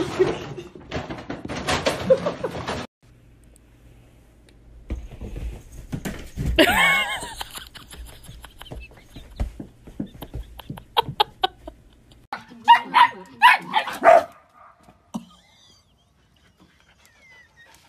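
A dog barking, a run of about five short barks near the end, after a drawn-out cry that rises and falls about six seconds in.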